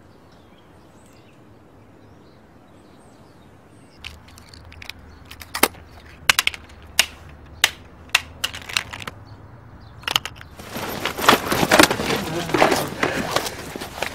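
Footsteps on concrete stairs: sharp, separate steps about every two-thirds of a second, then from about ten seconds in a louder rush of scuffling and shuffling feet.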